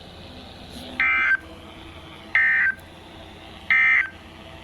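Emergency Alert System end-of-message signal: three short, identical bursts of buzzy SAME data tones, about 1.3 seconds apart, marking the end of the flash flood warning broadcast.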